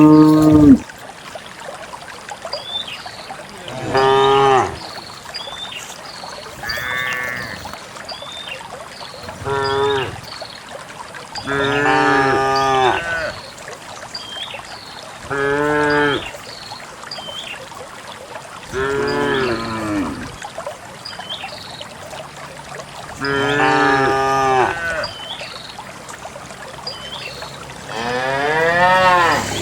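A herd of cows mooing, about nine long calls a few seconds apart, some bending down in pitch at the end.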